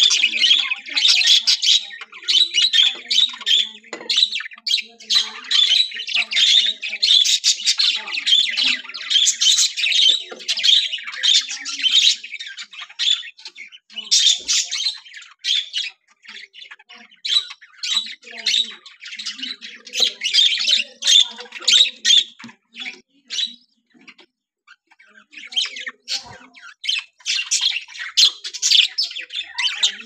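A colony of budgerigars chattering, a dense, continuous stream of high chirps and squawks from many birds at once. Near the end the chatter drops away for about two seconds, then resumes.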